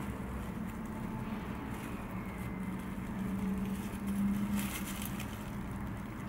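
Steady background hum with a low, even drone, and a few faint rustles a little over four seconds in as hands handle the sushi fillings on the bamboo rolling mat.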